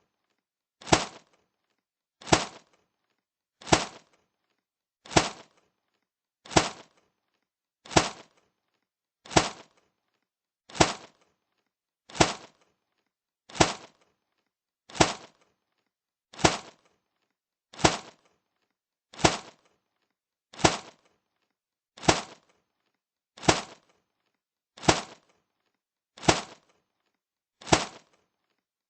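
Punch sound effect: a sharp, cracking hit repeated about twenty times, evenly spaced about a second and a half apart, with silence between hits.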